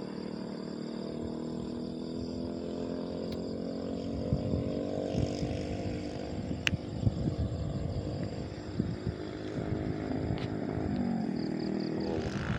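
A motor vehicle engine running under load, its pitch rising slowly and then easing off, with irregular low crackles over it.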